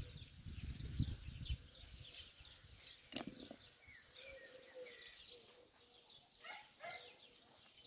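Small birds chirping in the background, many short repeated chirps. Some low thumping in the first second and a half and a single sharp knock about three seconds in.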